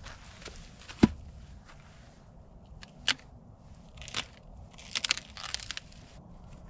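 Wrapping of a firewood bundle crinkling and rustling as it is handled and opened, in short bursts in the second half. A single sharp knock sounds about a second in.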